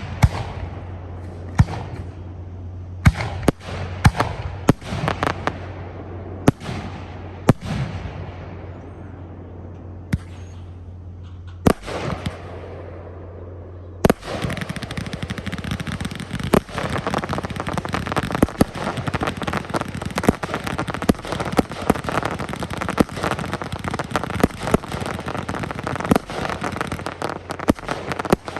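Fireworks display: single shell bursts go off about once a second, each followed by a fading crackle. About halfway through they give way to a dense, unbroken barrage of rapid bangs and crackling.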